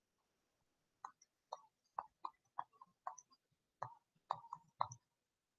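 Faint, irregular clicking of a stylus tip tapping on a tablet screen while handwriting an equation: about ten light taps over a few seconds.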